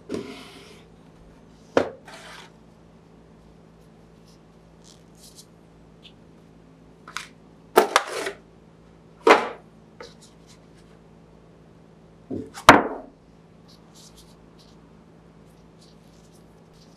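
Unboxing handling noises: gloved hands moving a cardboard box insert and packaging, heard as about six separate sharp knocks and clicks, each followed by a brief scrape or rustle, with quiet gaps between. The loudest knock and scrape comes about three-quarters of the way in.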